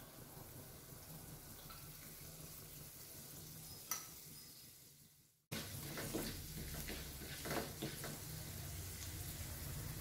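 Chana dal frying in hot oil in a kadai, a faint steady sizzle. After a brief drop-out past halfway, the sound comes back louder as a spatula stirs and scrapes the dal round the pan.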